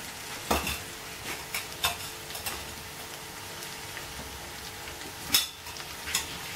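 Scattered clinks and knocks of a steel ladle against steel vessels as hot ghee is ladled onto powdered semolina and sugar in a pan and mixed in by hand, over a steady faint hiss. The sharpest knock comes about five seconds in.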